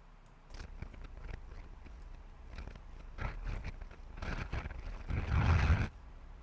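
Faint scattered clicks and rustling handling noises, with a louder rustle lasting about a second near the end.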